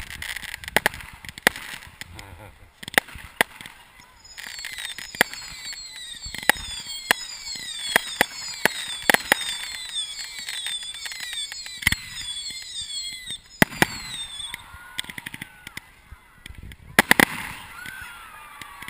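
Fireworks going off at close range: repeated sharp bangs through the whole stretch, with a dense run of whistles falling in pitch from about four seconds in until about fourteen seconds in.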